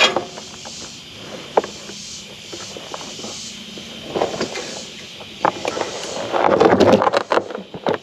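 Rustling and scraping with scattered sharp clicks as twine wrapped around a baler's pickup tines is pulled and worked loose by hand. A louder stretch of rough scraping comes about six seconds in and lasts about a second and a half.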